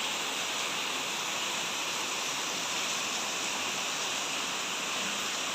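Rain pouring down steadily, an even hiss that doesn't let up.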